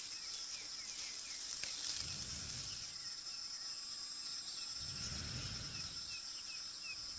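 Steady high drone of insects with small repeated chirps, and twice a soft low rush of breath as a man blows into a grass tinder nest holding an ember, nursing it toward flame.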